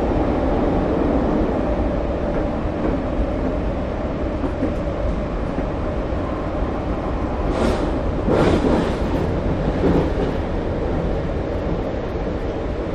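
Subway train running with a steady low rumble; a few short, louder clatters come about two thirds of the way in and again a little later.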